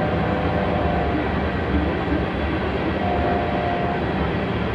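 Union Pacific coal train's cars rolling past: a steady rumble of wheels on rail, with a thin high tone that sounds during the first second and again about three seconds in.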